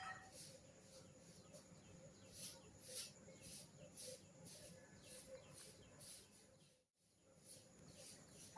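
Near silence with faint, high-pitched bird chirps recurring every half second or so; the sound drops out completely for a moment near seven seconds.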